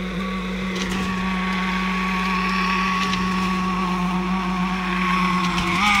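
Concrete mixer pump running steadily as it pushes concrete through the delivery pipeline, a steady drone that rises slightly in pitch near the end.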